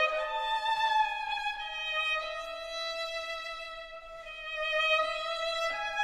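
Background music: a solo violin playing a slow melody of long held notes.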